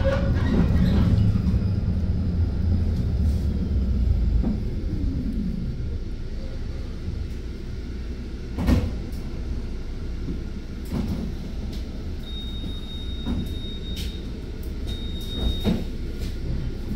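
Low vehicle rumble with a falling pitch about five seconds in and scattered clicks and knocks, the loudest about nine seconds in. Near the end a high steady beep sounds twice, the first lasting about two seconds.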